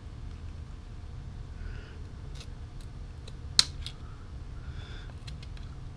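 Small hand-work clicks and ticks from cutting epoxy and thread off a fishing rod guide with a razor blade, with one sharper snap about three and a half seconds in, over a low steady rumble.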